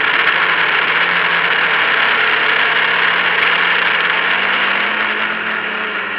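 A drone's propellers and motors whirring steadily, heard from its onboard camera. The pitch rises slightly, and the sound fades near the end as music comes in.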